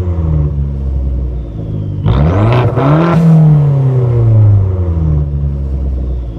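Turbocharged four-cylinder engine of a 2013 Dodge Dart with a custom-built exhaust, revved while parked. The revs fall away at first, rise sharply about two seconds in, and drop back to a steady idle, with a faint falling whistle as they come down.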